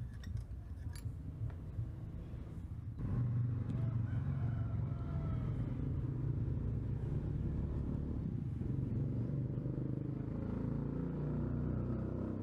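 A low engine rumble sets in suddenly about three seconds in and runs on steadily, after a few light clicks.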